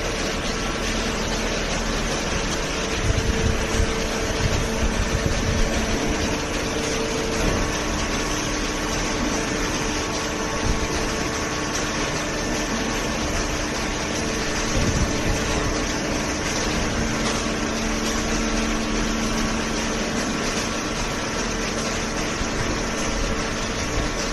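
Hydraulic power unit of a small horizontal paper baler running steadily: the electric motor and hydraulic pump hum, its pitch shifting a few times. A few louder low thumps come a few seconds in and again about two-thirds of the way through.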